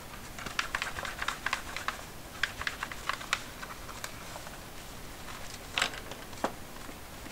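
Plastic keys of a Casio fx-7400G Plus graphing calculator being pressed in a quick run of clicks for the first three and a half seconds, followed by two louder, separate clicks near the end.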